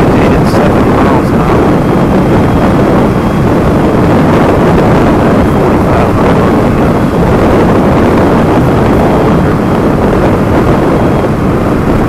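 Wind buffeting the microphone over the steady drone of a Gen 1 Kawasaki KLR650's single-cylinder engine and Supertrapp exhaust, cruising at highway speed.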